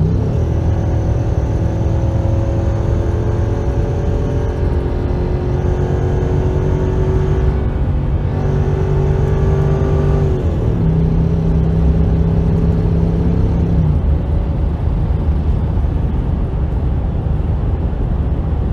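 Land Rover LR3's 4.4-litre V8 engine running, its pitch rising just after the start and shifting again about eleven seconds in. The engine has a ticking that the owner cannot place: it sounds like an exhaust leak at low engine speed and load, but could be valve-train noise.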